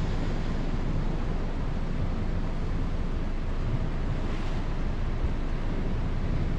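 Wind buffeting the microphone in a steady, low rush, with sea waves washing against rocks along the breakwater.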